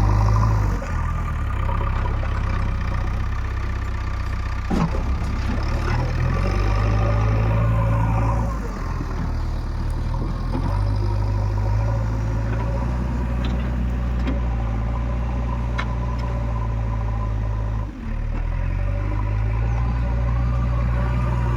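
Diesel engine of a JCB 3DX Eco backhoe loader running at work, its note rising and falling several times as the load changes while it digs and loads mud, with a sharp knock about five seconds in.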